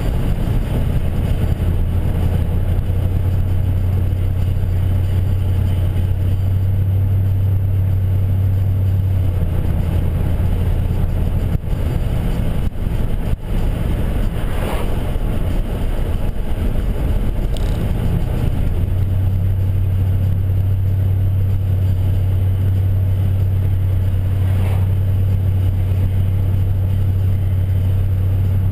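2009 Mercury Grand Marquis's 4.6-litre V8 breathing through catted long-tube headers and a chambered cat-back exhaust, heard inside the cabin while cruising: a steady low exhaust drone, which the owner finds too loud. The drone eases about nine seconds in and comes back strong about ten seconds later.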